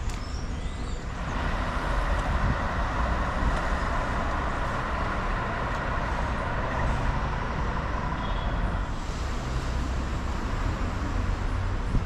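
City street traffic: a steady low rumble, with a louder rushing noise from about a second in to about nine seconds in, as a vehicle passes on the street below.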